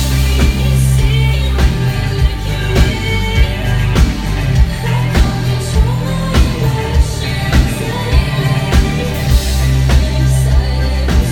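Live indie pop-rock band playing: a woman's lead vocal sung over electric guitar, bass and drums, with a steady drum beat hitting a little under twice a second.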